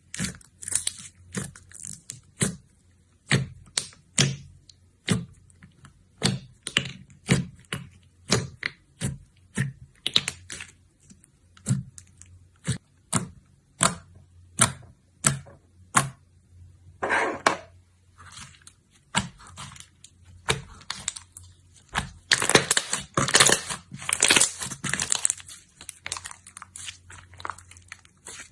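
Slime being poked and squeezed by hand, making short crackling pops about two a second. A denser run of crackling comes a little past two-thirds of the way through.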